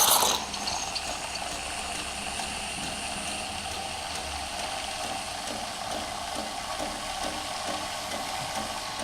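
Steam wand of an automatic coffee maker hissing steadily as it releases steam for a cappuccino's milk, louder for a moment at the start, then settling to an even hiss.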